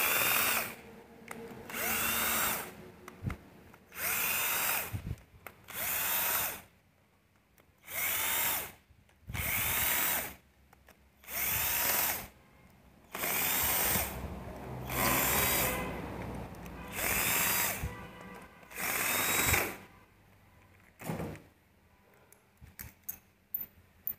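Power drill-driver running in about a dozen short bursts, each winding up and then dropping in pitch, as it spins out bolts on a Bajaj Pulsar motorcycle engine. A few light clicks follow near the end.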